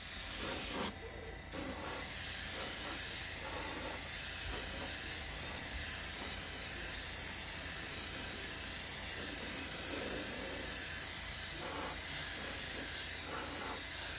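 Airbrush spraying paint: a steady hiss of air and paint, breaking off briefly about a second in and then running on.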